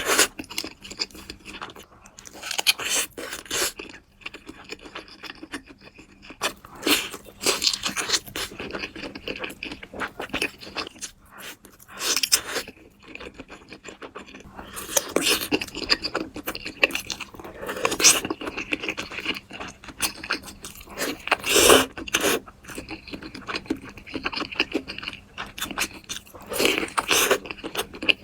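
A person eating close to the microphone: bites and chewing in irregular bursts every second or two.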